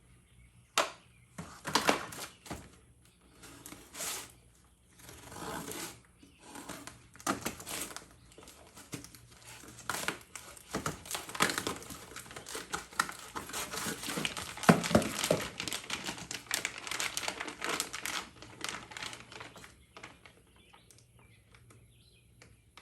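Packaging being crumpled and torn open by hand: irregular crinkling and crackling, busiest in the middle and trailing off near the end.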